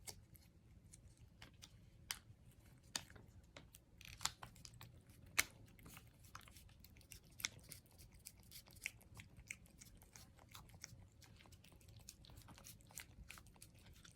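A cat licking and chewing at a squeeze-up treat: faint, irregular small wet clicks and smacks, a few each second.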